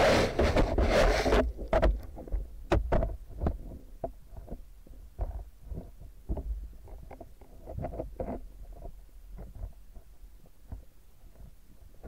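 Underwater: a loud rush of water noise that cuts off about a second and a half in, then irregular sharp clicks and knocks over a low rumble, growing fainter.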